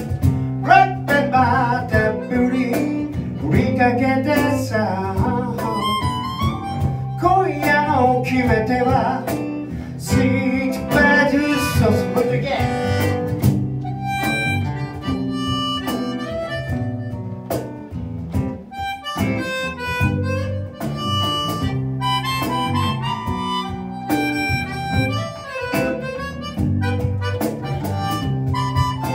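Live acoustic guitar playing an instrumental break in a blues-tinged song. A bending melody line runs over the strummed chords for roughly the first half, then gives way to steadier chords and picked notes.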